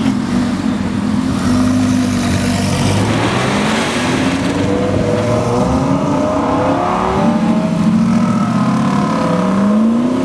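Audi R8 supercar engine pulling away under full throttle, its exhaust note holding steady at first, then climbing in pitch several times as the car accelerates off.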